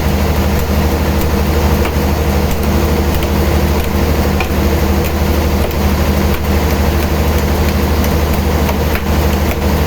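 Heavy sawmill machinery running with a steady, loud, low engine-like hum.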